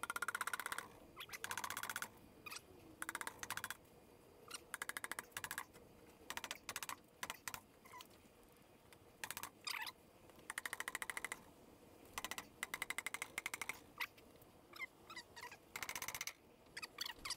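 Nylon hammer tapping a seized cylinder barrel on an air-cooled VW 25 hp engine, working it back and forth to free it from the crankcase. The taps come in quick runs of many rapid, light clicks, again and again.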